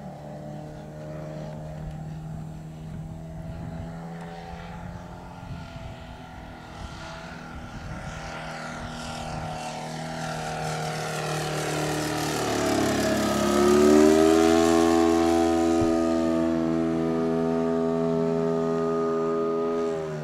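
Engine of a large radio-controlled Piper Cub model, a Titan ZG 80B 80cc petrol two-stroke, droning steadily in flight. It grows louder as the plane comes closer, is loudest about two-thirds of the way through, and its pitch drops as the plane passes.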